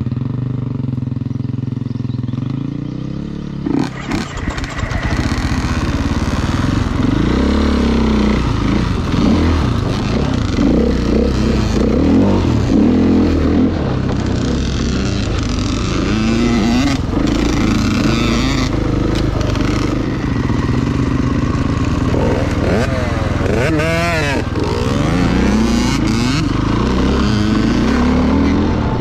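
Off-road motorcycle engine running, steady at first, then revving up and down with its pitch rising and falling from about four seconds in.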